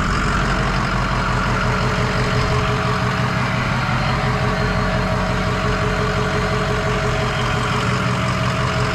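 2007 Ford F-250's 6.0-litre Power Stroke V8 turbodiesel idling steadily, run with the air conditioning on high after a refrigerant charge.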